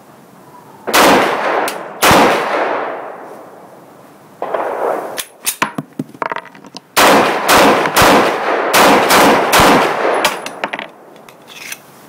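Tokarev TT pistol firing 7.62x25mm rounds: two loud shots about a second apart, then after a pause a quick string of about half a dozen shots, each followed by a short echo. Fainter sharp cracks fall in the pause between them.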